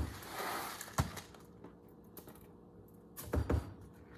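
About four dull knocks of a spoon against a pot, with a short scrape of cereal being stirred just after the first one, while crisped rice cereal is mixed into melted marshmallow.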